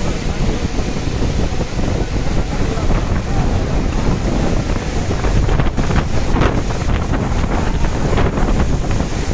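Strong gusty wind of a Kalbaishakhi (nor'wester) storm buffeting the microphone: a loud, steady, rumbling rush of wind noise.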